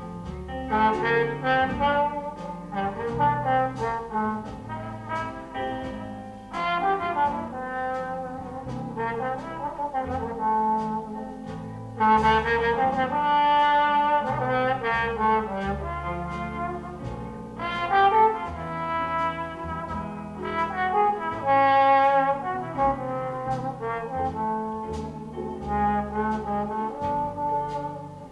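Jazz trombone playing a featured solo melody, some notes sliding between pitches, accompanied by piano, string bass and drums.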